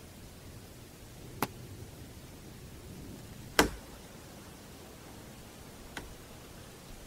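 Three sharp knocks or cracks about two seconds apart over the steady hiss of an unattended field recorder; the middle one is much the loudest and the last the faintest.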